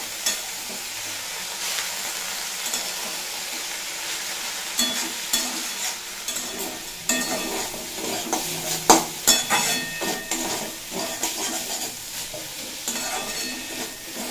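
Chopped spinach and potatoes sizzling in mustard oil in a metal kadai, with a flat metal spatula scraping and clacking against the pan as the greens are stirred and turned. The scraping comes thicker from about halfway through. This is the stir-frying stage, with the spinach wilting while the potatoes cook through.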